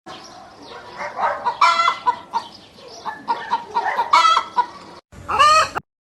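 Chickens clucking in a run of short repeated calls, with a louder, longer call with a bending pitch near the end after a brief break.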